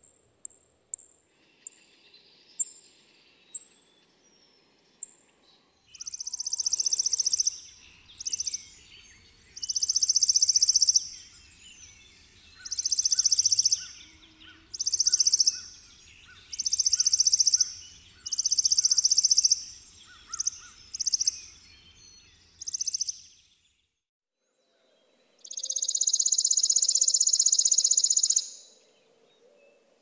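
Chipping sparrow singing: a few sharp high chips spaced further and further apart, then a run of short dry rapid trills about a second long, repeated every second or two, and after a brief break a longer trill of about three seconds.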